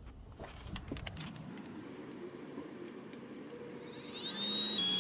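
A few light clicks and handling knocks, then about four seconds in a furnace motor starts up with a whine that rises in pitch and holds steady, much louder than what came before. This is the start of the heating cycle after the tripped limit switch has been jumpered out.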